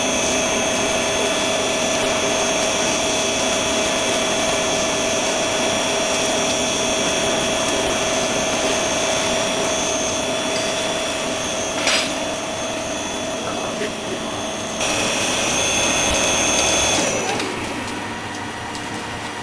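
DIEX CGB20 automatic core drill grinding machine running with a steady, high whine. A sharp click comes about twelve seconds in. The machine runs louder for a couple of seconds, then its motor winds down with falling pitch and settles to a quieter hum near the end.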